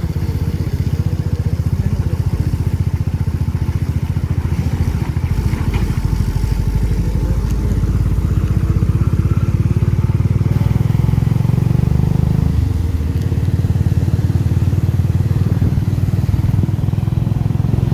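Motorcycle engine running steadily at riding speed, heard from on the bike, a dense low pulse that swells a little about two-thirds of the way through.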